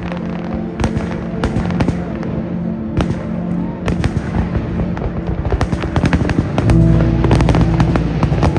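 Fireworks going off, with many irregular bangs and crackles, over steady music that grows louder about two-thirds of the way through.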